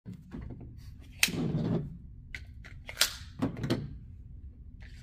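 Sharp metallic clacks and clicks of an unloaded semi-automatic pistol being handled and worked, a few separate strokes, the two loudest about a second in and about three seconds in.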